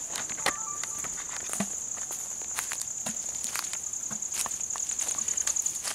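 A steady high-pitched insect drone, with scattered sharp snaps and crackles of twigs and dry leaves from movement through dry scrub.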